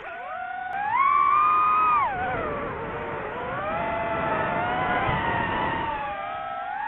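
DJI FPV drone's motors and propellers whining, the pitch swelling up about a second in, holding high for about a second as the throttle is pushed, then sinking and wavering with the throttle changes.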